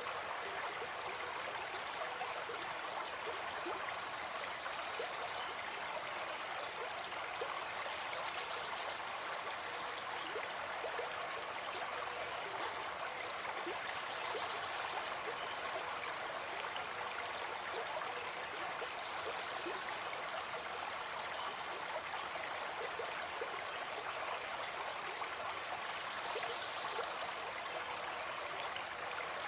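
A forest stream flowing steadily over rocks, a continuous babbling and gurgling of running water.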